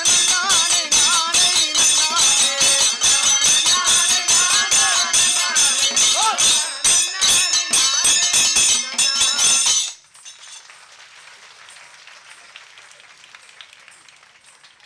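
Kanniyarkali folk performance music: a singing voice over a fast, even beat of jingling metal percussion. It cuts off abruptly about ten seconds in, leaving a faint crowd murmur.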